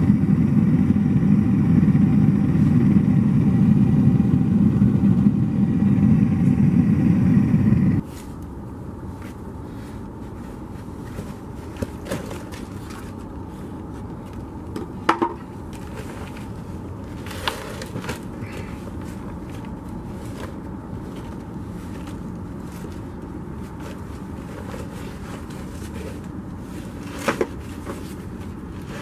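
A steady low rumble cuts off suddenly about eight seconds in. After it, quieter scraping and a few sharp knocks as packed casting sand and a mold are broken apart by gloved hands in a plastic tub.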